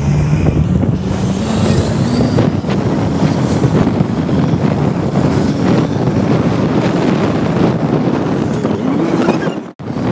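Motor scooter under way: its engine running with steady road noise, the engine note climbing over the first two seconds. The sound cuts out sharply for a moment near the end.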